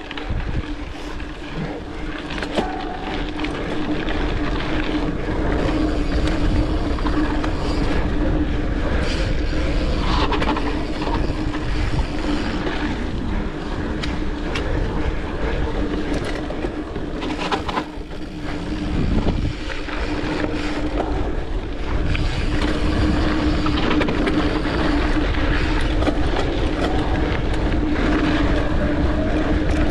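Mountain bike rolling along a dirt trail: knobby tyres on the ground, with a steady hum, a heavy low rumble and scattered knocks and rattles from the bike.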